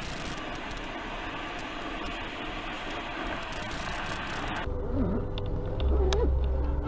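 Steady road and wind noise inside a vehicle driving on a highway. About two thirds of the way through it cuts to a quieter car cabin with a low engine hum and a wavering pitched tone that slides down and back up.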